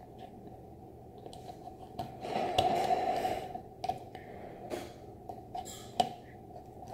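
Small plastic toy pieces handled and clicked together: scattered light clicks, with a longer rustle about two seconds in, over a steady faint background hum.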